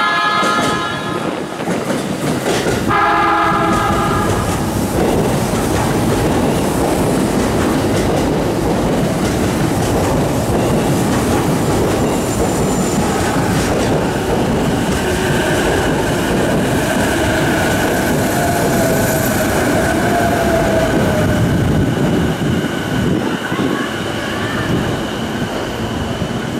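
JR East E233-2000 series electric commuter train running into a station. A horn sounds twice, right at the start and again about three seconds in, then there is steady wheel-and-rail rumble and clatter. A high electric whine, gliding in pitch, joins it from about halfway through.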